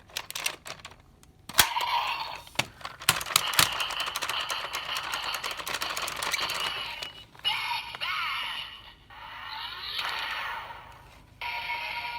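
Plastic clicks of a Sentai gear being set and turned in the DX Zenkai Buckle toy belt, then the buckle's electronic sound effects and music playing through its small speaker, with sweeping tones near the end.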